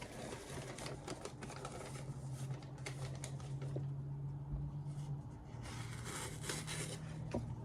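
A sheet of paper being cut by a freshly sharpened carbon-steel axe edge in a sharpness test, a run of crisp, scratchy rustles and snags; the blade cuts but drags because the grind is thick behind the edge. A low steady hum runs underneath for most of it.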